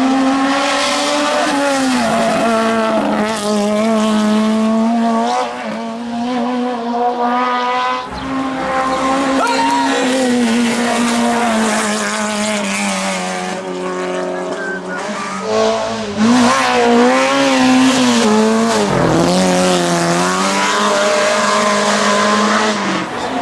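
Citroën AX A 1/2 hill-climb car's 1.3-litre four-cylinder engine running hard at high revs, its pitch dipping and climbing again several times.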